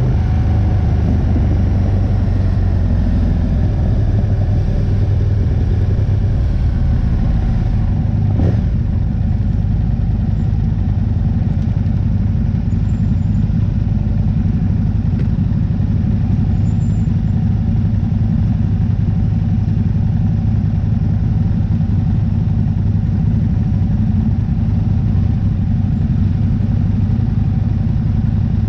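Aprilia RSV-R motorcycle engine heard onboard, its pitch falling over the first several seconds as the bike slows, then running steadily at low revs. One brief knock about eight seconds in.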